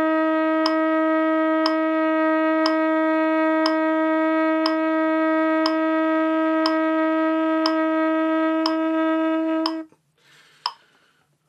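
Trumpet holding one long, steady note in a long-tone exercise, cut off about ten seconds in. A metronome clicks once a second throughout.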